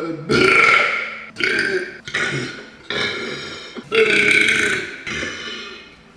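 A person belching a rapid run of about six loud burps, each under a second long with short gaps between. The burps trail off near the end.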